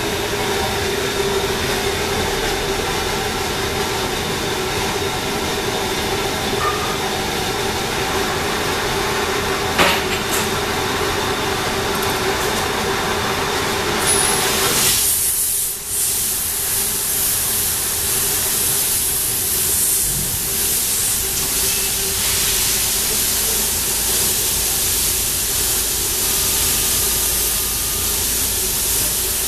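Hempel IH-25 automatic copy-turning lathe running: a steady machine hum with a constant tone and one sharp click. About halfway through the hum drops back and a steady hiss takes over.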